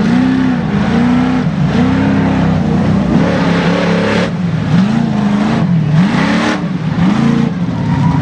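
Lifted mud truck's engine revving hard and dropping back over and over, the note rising and falling about once a second as it climbs and bounds through a hill-and-hole course. Around the middle a rush of hiss joins the engine as it tears through a mud hole.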